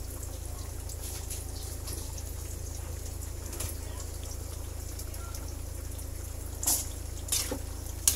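Thick chicken curry simmering in an aluminium pan, a faint bubbling over a steady low hum, with a metal ladle clinking and scraping against the pan three times near the end.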